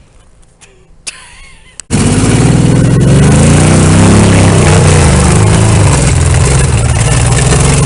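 Jeep J-10 pickup's V8 with open headers running very loud at high revs during a hill-climb attempt, cutting in suddenly about two seconds in after a quieter stretch, its pitch rising and falling as the throttle works.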